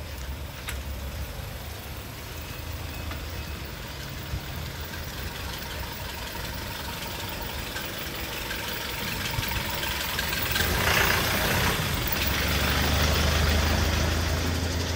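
A motor vehicle's engine on the street, growing louder from about ten seconds in as it draws close. A deep engine rumble is strongest near the end.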